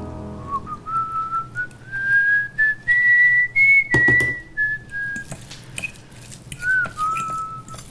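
A person whistling a slow tune: one pure note climbs in steps to a high point about halfway through, then steps back down. A few short clicks and a louder knock about four seconds in sound alongside.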